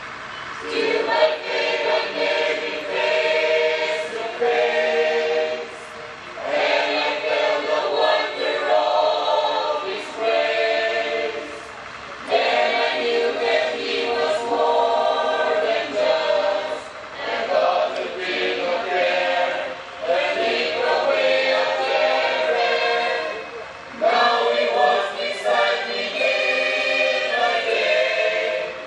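Women's church choir singing together, phrase after phrase of a few seconds each with brief breaks between them.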